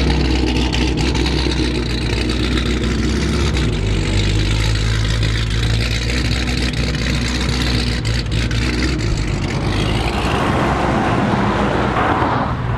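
Dodge Challenger SRT's Hemi V8 rumbling at low revs as it pulls away slowly over dirt. About ten seconds in, a broader rushing noise takes over.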